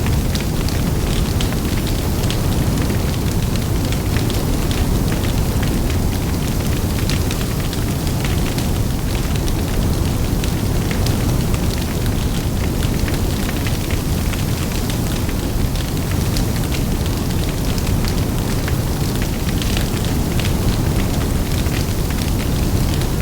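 Large open fire burning, with a steady low rumble of flames and wind and frequent sharp crackles and pops.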